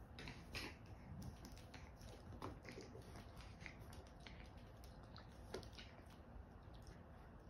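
Near silence broken by faint, scattered small clicks and rustles from a small dog moving about on a hardwood floor and nosing into a cushioned pet bed.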